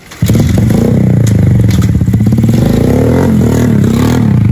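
Small underbone motorcycle engine starting suddenly about a quarter second in, then running loudly with the revs rising and falling.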